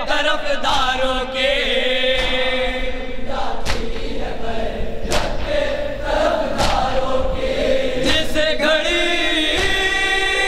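A group of men chanting a nauha (mourning lament) in unison behind a lead reciter on a microphone, with chest-beating (matam) slaps falling in time about every second and a half.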